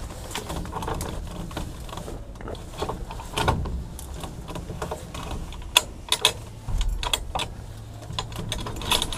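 Scattered clicks, knocks and clothing rustle as a man settles into a light aircraft's cockpit and handles its controls, with the engine not running. A pair of sharper clicks comes a little past the middle.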